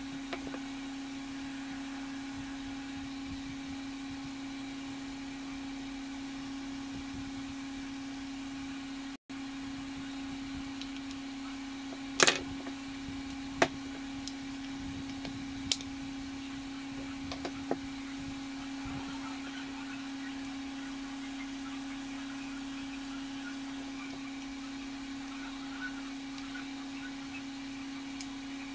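A steady electronic tone holding one pitch, with a few sharp plastic clicks from the pressure washer gun's handle, trigger and small parts being handled and fitted together. The loudest click comes about twelve seconds in, with others near thirteen and a half, fifteen and a half and seventeen and a half seconds.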